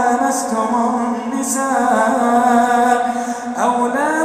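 Male Quran reciter chanting in slow, melodic tajweed style, drawing out long held notes with bending pitch ornaments. About three and a half seconds in, the voice glides up to a higher held note.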